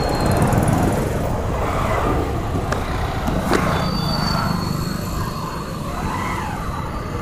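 Motorcycle running slowly along a town street, heard from the rider's seat: steady engine and road noise with passing traffic around it. There is a pair of sharp clicks around three seconds in.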